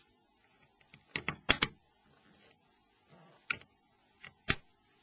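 Small, sharp clicks of hard phone parts being handled during disassembly: a quick run of about four clicks a second in, then one click after about three and a half seconds and two more near the end.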